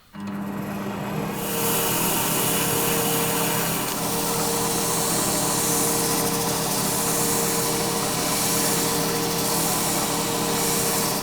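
Electric power tool starting up and running steadily: a motor hum under a loud hiss that grows about a second and a half in.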